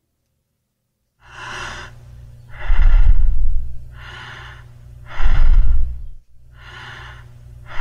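Normal, regular human breathing (eupnea) as a demonstration of the baseline breathing pattern. It starts about a second in, with even in-and-out breaths alternating softer and louder, one full breath cycle roughly every two and a half seconds.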